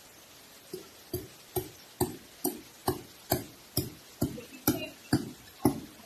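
Wood being hammered by hand: about a dozen knocking blows, evenly spaced at roughly two a second, starting just under a second in.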